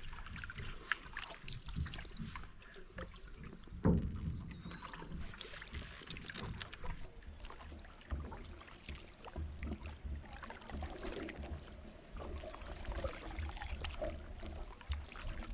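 Paddles stroking and dipping through the water beside an aluminum canoe, with light splashes and drips and one louder knock about four seconds in.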